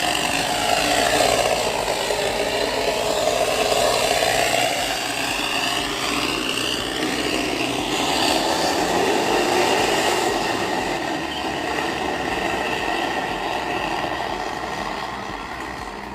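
Mitsubishi L300's engine running through an aftermarket exhaust muffler, its pitch rising and falling as it is revved over the first half, then holding steadier and fading near the end.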